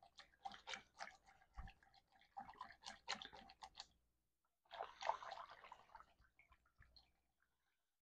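Faint clicking and sloshing of a wire whisk stirring vanilla pudding mix and milk in a glass bowl, with a short pause about four seconds in.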